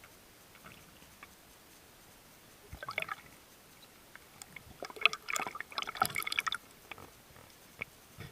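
Underwater bubbling and clicking in irregular clusters: a short burst about three seconds in, then a denser run of crackles from about five to six and a half seconds.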